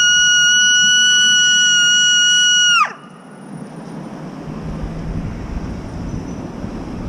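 A loud siren holding one high, steady note, which slides down in pitch and cuts out about three seconds in. A quieter, lower rumbling noise follows, slowly growing louder.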